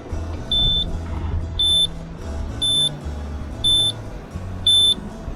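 A short high electronic beep repeating steadily about once a second, over background music with a shifting bass line.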